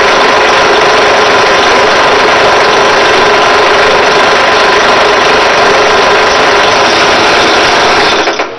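Drill press running steadily with a valve guide spinning in its chuck while it is worked down by hand to size, the motor's hum mixed with the rasp of the metal being abraded. The noise cuts off suddenly near the end.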